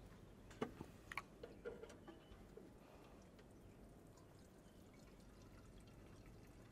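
Near silence, with a few faint clicks and knocks in the first two seconds as a plastic fuel sampling bottle is pushed up against an aircraft wing's fuel-tank drain valve to draw a fuel sample.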